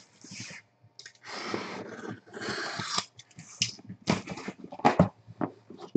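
Cardboard Panini card case being handled and turned: rustling and scraping against the cardboard and its plastic wrap, then a few sharp knocks near the end.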